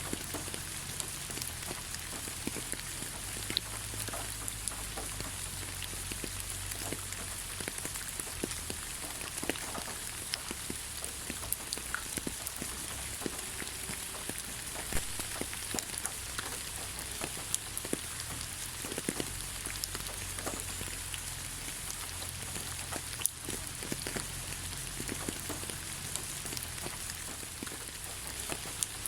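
Rain falling steadily on the ground: an even hiss with many separate drop splashes scattered through it.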